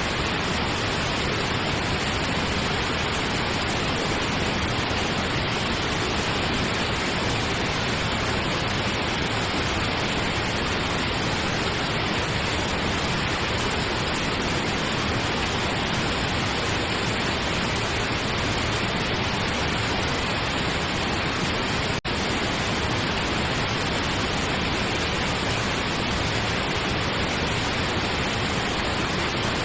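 Steady pink noise: an even, constant hiss spread across all pitches, with a momentary dip about 22 seconds in.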